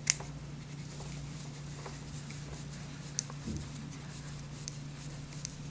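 Scattered small clicks and taps of an M3 screw against 3D-printed plastic parts being handled as the screw is test-fitted, the sharpest click right at the start, over a steady low hum.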